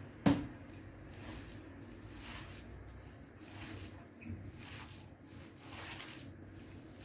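A sharp knock just after the start, then soft, wet squishing and swishing repeated every half second or so as a seafood, vermicelli and chermoula filling is mixed in a bowl.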